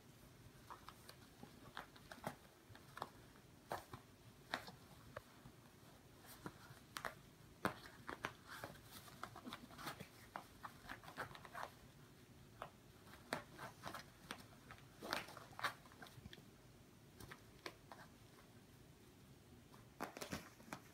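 Two cats playing with a fabric kicker toy: faint scattered clicks, scratches and rustles as they paw, kick and bite it on a tiled floor, in quick clusters with quieter gaps between.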